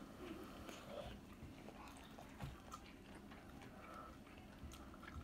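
Faint chewing and biting of a pan-fried potsticker dumpling, with a few small soft clicks.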